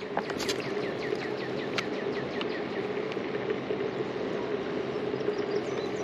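Steady rush of river water flowing over shallow rocks. A bird calls a quick series of short falling chirps during the first couple of seconds, with a few faint higher chirps near the end.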